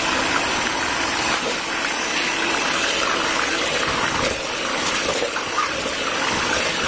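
Electric hand mixer running steadily, its beaters whisking a thin, runny batter in a plastic bowl.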